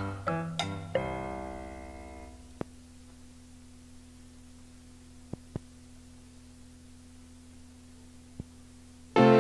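The last notes of a children's song on a cassette end in a held chord that fades away about two seconds in. A gap follows with a low steady hum and a few faint clicks, and the next song's music starts near the end.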